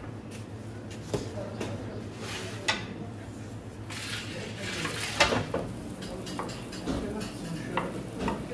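Metal utensils clinking and scraping against pans and dishes at irregular intervals, the loudest clink about five seconds in, over a steady low hum.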